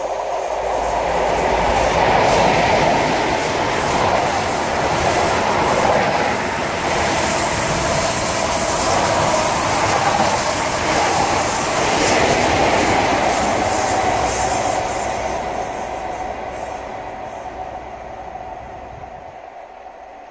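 InterCity 125 high-speed train passing at speed: the diesel power car's engine, then the rumble and clatter of the Mk3 coaches' wheels on the rails. It fades away over the last several seconds.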